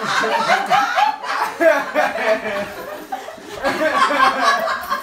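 Several people laughing and chuckling, mixed with some voices. A run of short repeated laughs comes in the first second.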